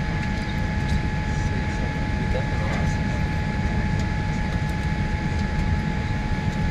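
Airliner jet engines running steadily: a constant low rumble with a steady whine above it.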